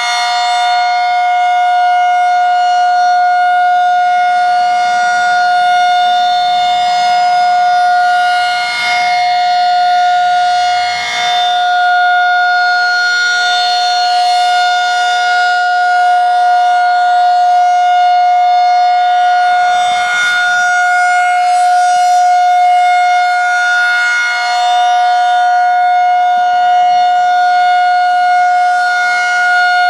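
Federal 2001-SRN single-tone outdoor warning siren sounding a steady wail during a test, holding one pitch with small dips in loudness.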